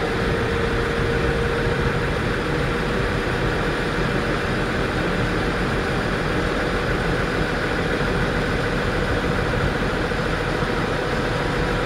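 Excursion ship's engine running steadily under way: a continuous drone with a steady mid-pitched hum over a broad rush of noise.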